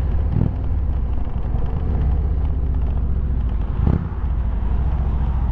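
Indian motorcycle's V-twin engine running steadily on the road, with wind rushing past the rider. Two brief thumps come about half a second and four seconds in.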